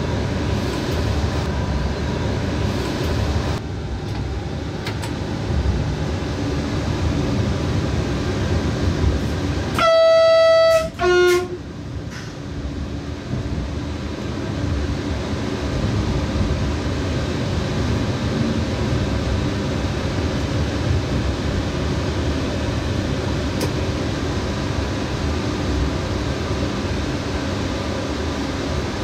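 Electric train running, heard from inside the driver's cab: a steady rumble of wheels on rail. About a third of the way through the train horn sounds, one high note of about a second followed at once by a short lower note.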